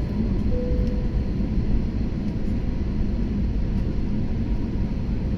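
Steady rumble of an airliner's cabin during descent: engine and airflow noise heard from inside the passenger cabin, with a faint brief tone about half a second in.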